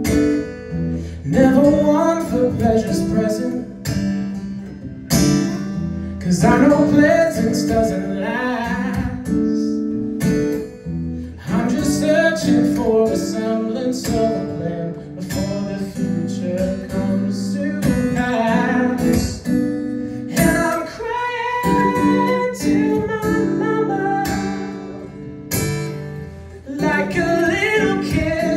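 Live solo performance: a man sings while playing an acoustic guitar, strumming and picking chords under his vocal phrases, with brief breaks between lines.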